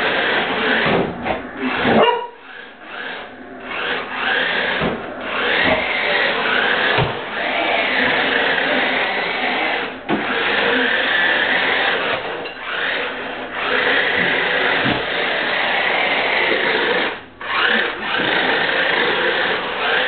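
Remote-control drift car's small electric motor whining, its pitch rising and falling as the throttle is worked, dropping away briefly a couple of times. A few low knocks are mixed in.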